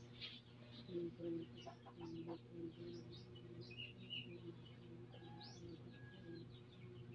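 Faint chicken clucking and small bird chirps over a steady low hum.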